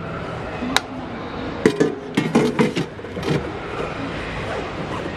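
Clattering knocks and clinks of hard objects being handled: one sharp click a little under a second in, then a quick run of knocks with a short ringing tone in the middle, over a steady background hum.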